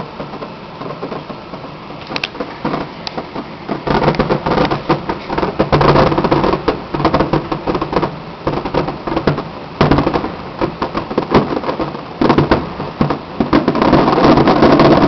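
Fireworks display: aerial shells bursting with rapid crackling. Only a few scattered bangs for the first few seconds, then from about four seconds in a dense, continuous run of bangs and crackle that is heaviest near the end.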